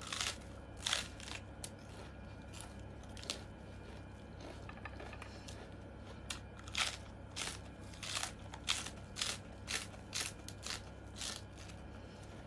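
Close-up crunching of crisp raw lettuce salad being bitten and chewed, with irregular clusters of sharp crunches.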